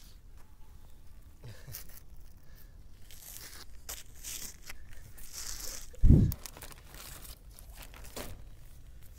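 Plastic cat food pouch being torn open and crinkled, a crackling, rustling sound, followed about six seconds in by a short, heavy thump, with a second thump at the very end.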